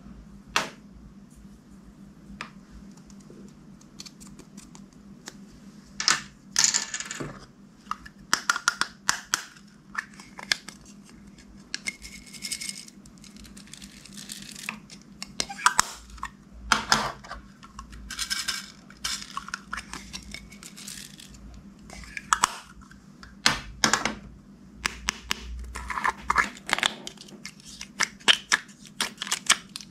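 Clear glossy slime being mixed and squeezed by hand, giving irregular sticky clicks and crackling pops, some in quick runs.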